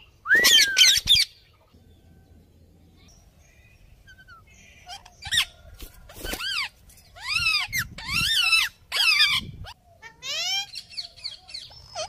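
A flock of rose-ringed parakeets (Indian ringnecks) calling with harsh, screeching notes: a loud burst in the first second, a lull of a few seconds, then a run of repeated screeches through the second half.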